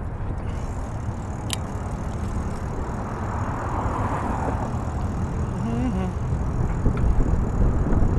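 Outdoor wind and distant road traffic: a steady low rumble, with a single sharp click about a second and a half in.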